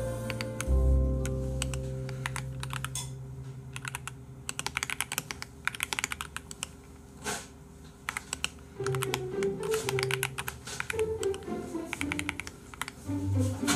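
Typing on a computer keyboard: fast runs of key clicks over background music.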